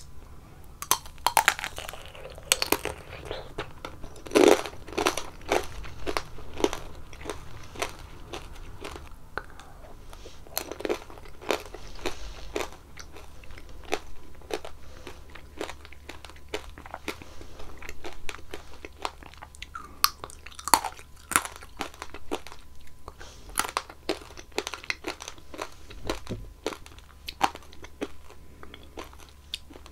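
Close-miked eating of strawberry tanghulu: the hard candied-sugar shell cracks sharply between the teeth, and the strawberries are chewed, in irregular crunches throughout.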